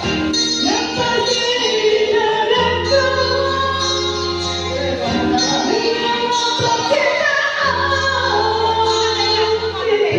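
A woman singing a melody over backing music with sustained low chords.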